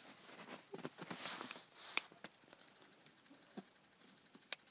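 Footsteps crunching and pattering on snow, with a few sharp clicks about two seconds in and near the end.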